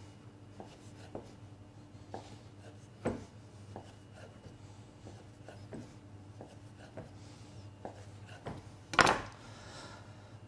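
Kitchen knife cutting puff pastry into strips on a wooden board: irregular short knocks as the blade comes down through the dough onto the wood, with a louder knock near the end. A low steady hum runs underneath.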